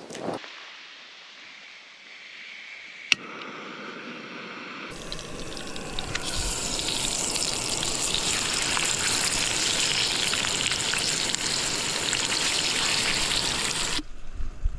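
Hot oil sizzling in a frying pan as a raw snapper fillet goes in, building from about five seconds in into a steady, loud sizzle. Before that there is only a faint hiss and one sharp click.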